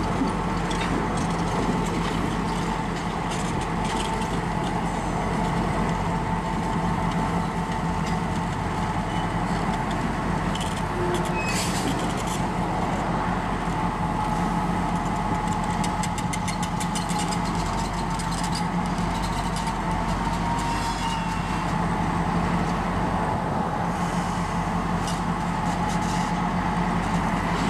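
Diesel road-switcher locomotive running steadily as it moves slowly past at low throttle: a constant low engine hum with a steady mid-pitched whine. A few light clicks and clanks come about halfway through.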